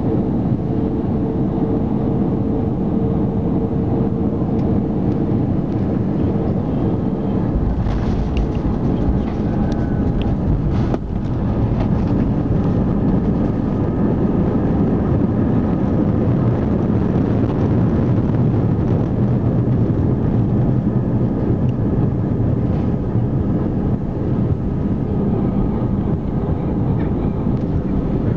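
Airbus A319 jet engines and airflow heard inside the cabin during landing, from the last moments over the runway through touchdown and the rollout. The noise is steady, with a held engine tone in the first several seconds, and it grows louder from about twelve seconds in as the airliner rolls along the runway.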